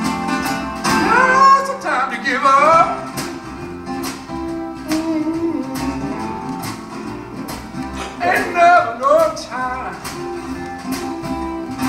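A song with acoustic guitar and a singing voice, played over Diesis Audio open baffle horn loudspeakers; sung phrases come about a second in and again near the eight-second mark.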